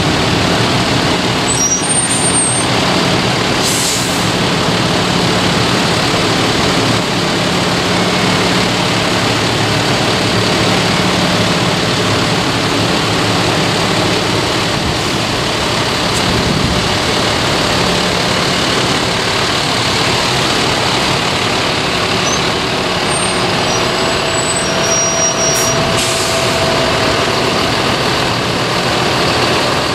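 A convoy of modern farm tractors driving slowly past, their diesel engines running steadily, with a few brief high squeaks near the start and again near the end.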